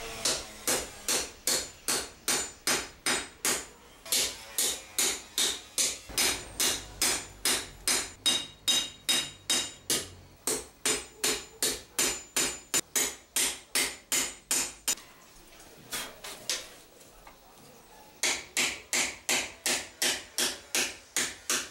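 Hand hammer striking a leaf-spring steel trowel blade on an anvil, about three ringing blows a second. The hammering breaks off for a few seconds after the middle, with one lone blow, then picks up again.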